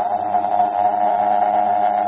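Sieg X2 mini milling machine running, its end mill cutting a plate and throwing off chips: a steady whine with a strong, even tone.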